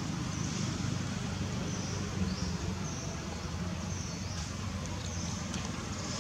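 A steady low engine hum, with short high chirps repeating about once a second over it.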